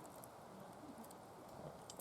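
Wood fire burning in a secondary-combustion fire pit, faintly: a soft steady rush with a few faint crackles.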